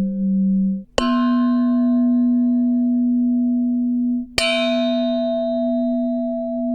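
Struck metal ringing with a long, steady hum. A pulsing tone stops abruptly just before a sharp strike about a second in; that ring is cut off by a second strike about four and a half seconds in, which rings on.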